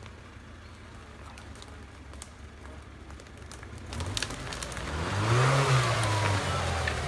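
UAZ-469 off-roader's engine, low and faint at first, then revved hard about four seconds in as it drives down through the forest, its pitch rising and then falling back.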